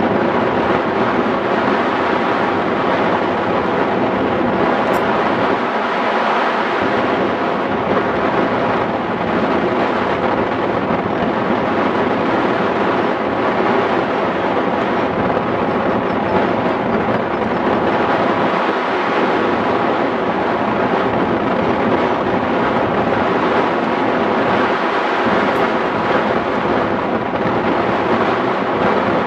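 Steady loud rush of airflow buffeting the microphone of a camera mounted on a hang glider in flight.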